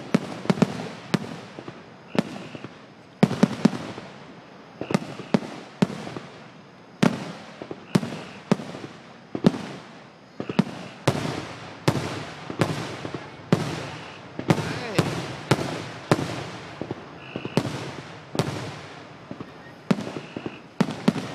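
Fireworks finale: a rapid, irregular string of loud aerial shell bursts, about one or two booms a second, each trailing off in a fading rumble.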